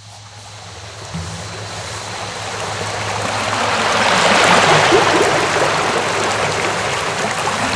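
Intro soundtrack: a rushing noise swells in over about five seconds and then holds, over low sustained tones.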